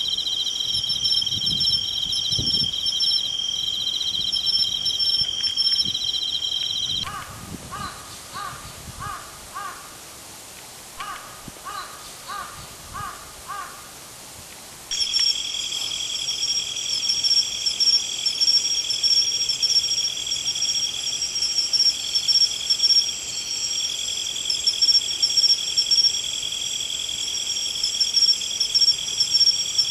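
A steady chorus of crickets trilling at a high pitch. About 7 s in it breaks off, and a crow caws in two runs of about five caws. The cricket chorus comes back at about 15 s.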